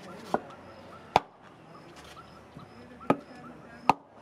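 Four sharp hammer blows on a wooden block held against a metal brake-drum casting pattern, rapping the pattern in the sand-casting process. The first blow is lighter; the blows about a second in and near the end are the loudest.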